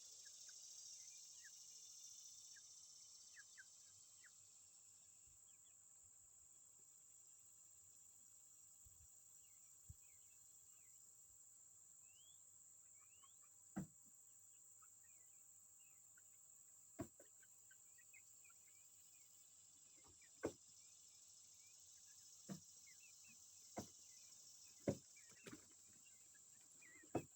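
Faint outdoor ambience: a steady high insect drone with scattered short bird chirps. From about halfway through, sharp clicks or taps come every few seconds, louder than the rest.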